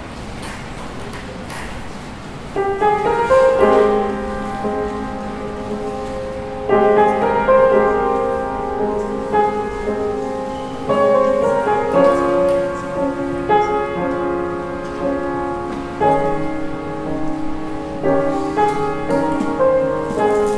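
Solo piano playing slow, sustained chords that change every few seconds, soft at first and louder from about two and a half seconds in.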